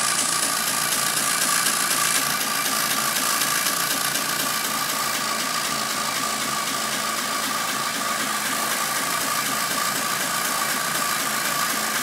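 Tractor engine running steadily, with a steady whine above the engine noise.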